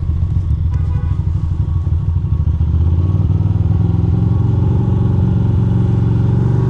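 Ducati Monster 620's air-cooled L-twin engine running at low revs while the bike rolls slowly, a little louder from about three seconds in.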